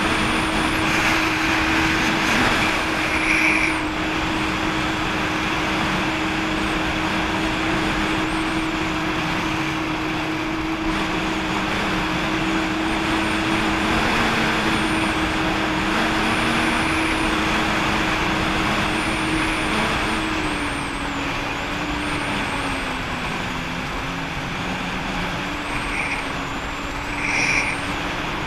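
Jet ski engine running steadily at cruising speed over a constant rush of water. The engine note drops slightly about twenty seconds in.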